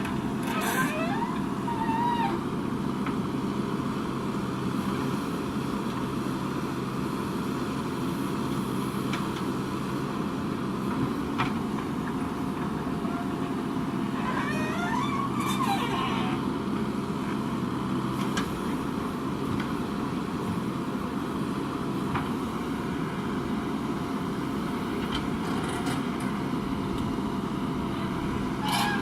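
Diesel engine of a JCB 3DX backhoe loader running steadily as it digs and loads soil into a tipper truck. A brief wavering higher-pitched sound rises over the engine once near the start and once about midway.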